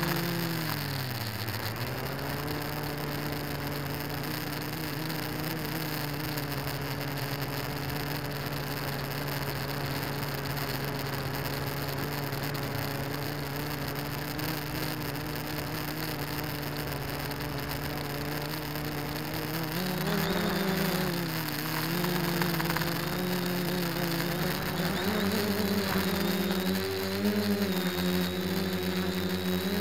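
DJI quadcopter's electric motors and propellers humming in flight, picked up by its onboard camera. The pitch drops in the first couple of seconds and holds steady, then from about two-thirds of the way through it wavers up and down as the throttle changes while the drone comes down near the ground.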